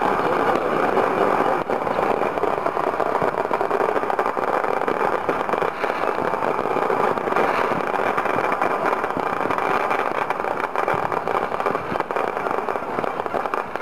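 Many fireworks and firecrackers going off at once across a city, their crackling and popping blending into one steady, unbroken wash of noise.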